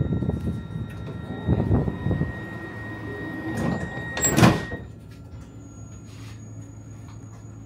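Commuter train's sliding doors shutting with a loud sudden whoosh about four seconds in, after uneven rumbling and knocks. After the doors close the carriage goes quieter, leaving a steady electrical hum and a thin high whine.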